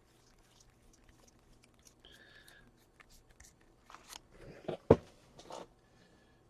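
Card box packaging and wrappers being handled: scattered crinkling and small clicks, with one sharp knock about five seconds in.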